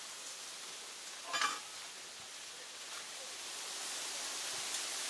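Brief rustle of fabric about one and a half seconds in as a cloth bag is pushed into a backpack, over a steady outdoor hiss that grows a little louder near the end.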